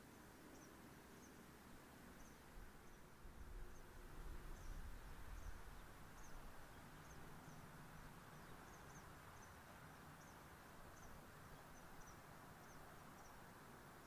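Faint meadow ambience: a steady soft hiss with short, high-pitched chirps repeating irregularly about twice a second, and a low rumble that swells for a few seconds near the start.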